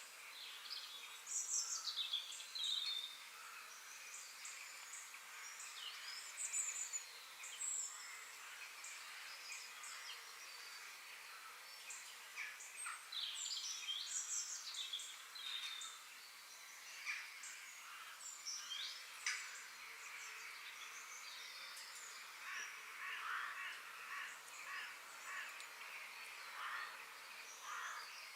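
Forest ambience: several birds singing and calling in short chirps, trills and falling whistled notes over a faint steady hiss.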